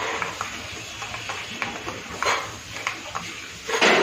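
A metal spoon stirring a thick mayonnaise and shredded-cabbage sauce in a stainless steel bowl: light clicking and tapping against the bowl, with a louder scrape about two seconds in and another near the end.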